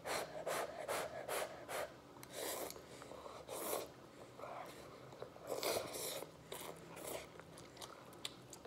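A person slurping and chewing forkfuls of spicy instant noodles, in a string of short, irregular wet sucking and mouth noises, a few of them longer.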